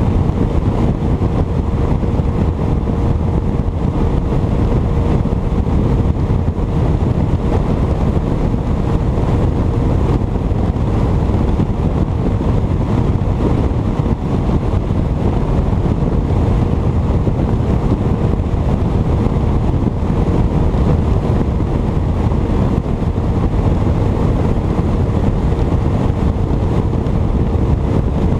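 Bass boat under way at speed on its 150 hp outboard motor: a steady, even rush of wind buffeting the microphone over the motor running at a constant pace, with a faint steady whine from the motor.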